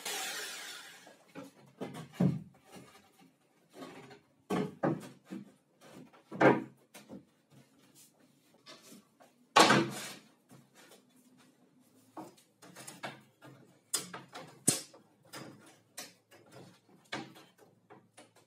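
A jigsaw winds down in the first second, then wooden boards and tools are handled on a workbench: scattered knocks, scrapes and clunks, the loudest thud about ten seconds in and a sharp knock near fifteen seconds.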